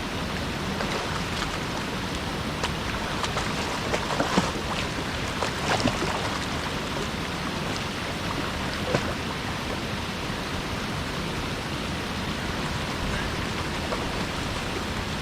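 Steady rush of water from a small waterfall pouring into a river, with a few short splashes about four to six seconds in and one more near nine seconds.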